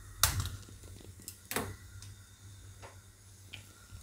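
Hand-held spark gas lighter clicking to light a gas stove burner: a few sharp clicks, the two loudest about a quarter second and about a second and a half in, with fainter ticks after.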